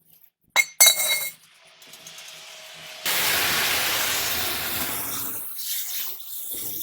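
A few sharp metallic clicks and clinks, then a loud steady hissing spray that starts suddenly about three seconds in and eases slightly near the end.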